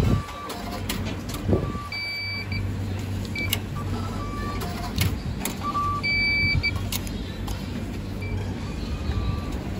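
Meal-ticket vending machine beeping as its buttons are pressed: a series of short electronic beeps at two pitches, a couple held for about half a second, with sharp clicks in between, over a steady low hum.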